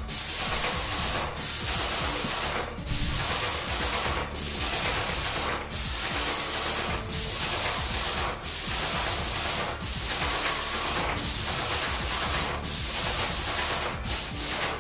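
Airless paint spray gun spraying paint in repeated trigger pulls: a loud hiss of atomising paint, each burst about a second long and cut off briefly as the trigger is released, roughly ten times at an even pace.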